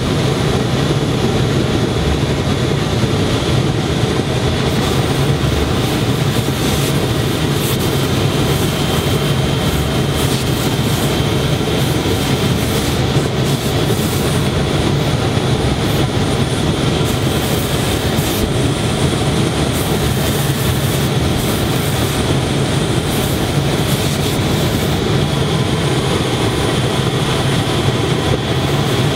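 Steady, loud running noise of garment-factory machinery: a constant hum with a thin high tone over it. Short hisses come and go from about five seconds in.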